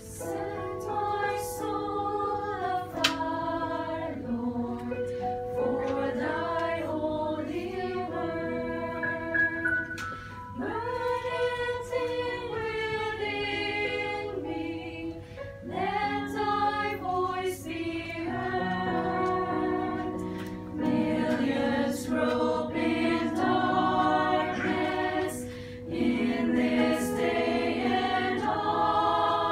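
Church choir singing a hymn in parts, held notes moving together, growing louder about two-thirds of the way through.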